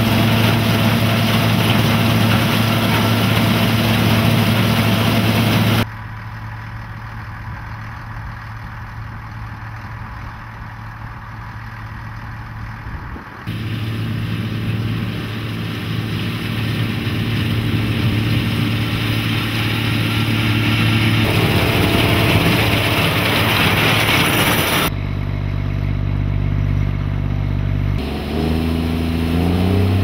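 Combine harvester running in the field: a steady drone of its engine and threshing machinery with a strong low hum. It changes abruptly in loudness and tone several times, quieter for a stretch in the middle, and the engine pitch rises near the end.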